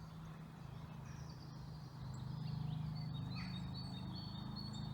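Small woodland birds singing in the background, thin high chirps and trills, over a low steady hum that grows louder about two seconds in.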